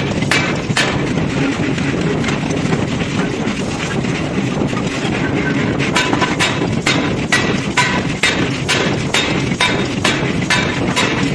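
Hammer blows on hot steel in forging, a regular train of sharp metallic strikes with a short ring, about two to three a second, over a steady low rumble of machinery. The blows break off about a second in and pick up again around six seconds in.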